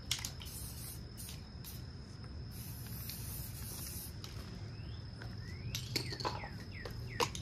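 Short hissing bursts from an aerosol spray-paint can, over a steady high insect drone. Near the end, a bird gives several quick falling chirps.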